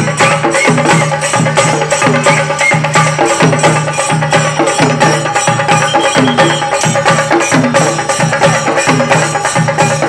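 Kerala chenda drums in a group, beaten with sticks in a loud, fast, unbroken rhythm: a chenda melam ensemble playing.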